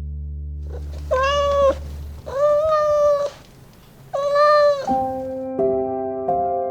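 A cat meowing three times, each meow a clear, drawn-out call of under a second. Sustained musical notes take over after the third meow.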